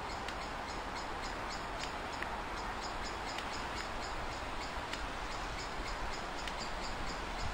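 Outdoor ambience: an even background hiss with a faint, high chirp repeating about three or four times a second.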